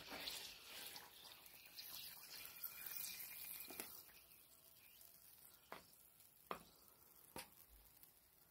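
Faint scraping and rustling of a wooden spoon working through dry cake mix and melted butter in a disposable aluminium foil pan, fading out after about four seconds. Then come three light taps about a second apart.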